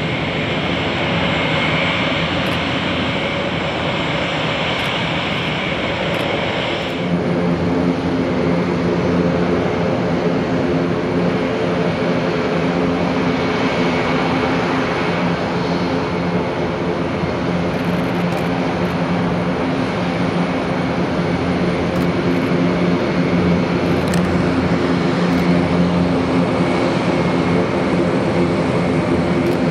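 Airbus A400M's four TP400-D6 turboprop engines running as the aircraft taxis, a steady propeller drone with several held tones. About seven seconds in the sound changes abruptly to a lower, fuller drone.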